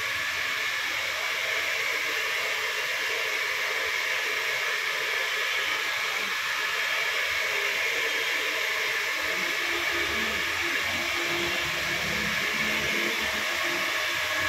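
A steady, even hiss of rushing air, with faint low knocks and rumbles in the second half.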